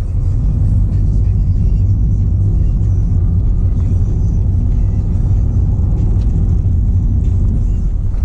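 Car being driven along a narrow lane, a steady low rumble of engine and tyres heard from inside the cabin.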